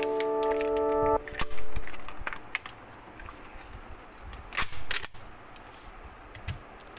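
Chiming background music cuts off about a second in. Irregular crackling and sharp clicks follow as a phone battery and its clear plastic film are peeled off the adhesive and handled, with the loudest clicks shortly after the music stops and again near the middle.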